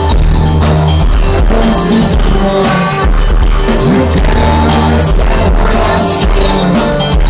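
Pagan folk band playing live through a festival PA, recorded close to the stage: loud music with heavy bass, drum hits and some singing, in poor, boomy sound quality.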